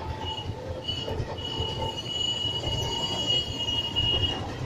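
Train wheels squealing on the rails: a long, steady high-pitched squeal that starts a moment in and stops just before the end, over a low rumble of the moving train.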